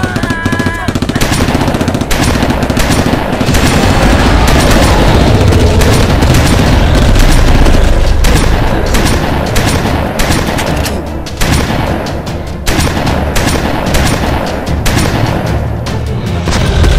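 Film action soundtrack: rapid volleys of gunfire over a heavy low rumble, with music underneath.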